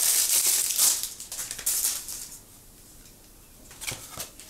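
Packaging crinkling and rustling as it is handled, fading out about halfway through, followed by two light clicks near the end.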